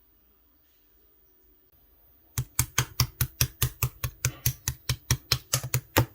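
Clear slime being pressed rhythmically by hand, making rapid popping clicks, about five a second. They start about two and a half seconds in, after a faint quiet stretch.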